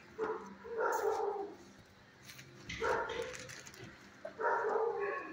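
Large dog barking close by: three loud barks about two seconds apart.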